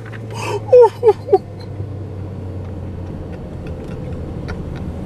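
Car engine and road noise heard from inside the cabin as a steady low drone. A voice makes a few short sounds in the first second and a half.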